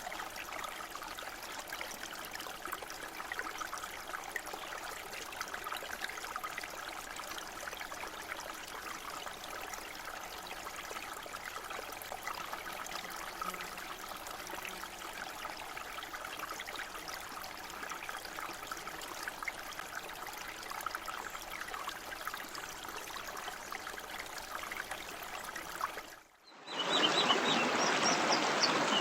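Fast-moving mountain stream rushing steadily over rocks. Near the end it cuts briefly and comes back louder and fuller.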